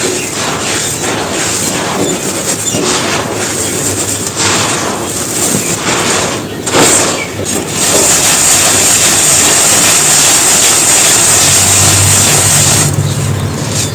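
Soft, dusty bricks being crushed and crumbling dry, with dense gritty crunching and crackling. About halfway through it settles into a steadier, even grinding hiss.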